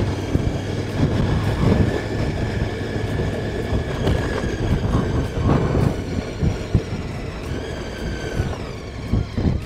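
Motorcycle engine running while riding, under heavy wind buffeting on the microphone. About eight seconds in, the engine note falls as the bike slows.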